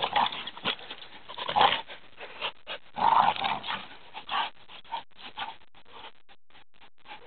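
Two pit bull-type dogs growling in short bursts as they pull at a soccer ball in a tug-of-war, the loudest bursts about a second and a half and three seconds in, with scattered small clicks and scuffs between them.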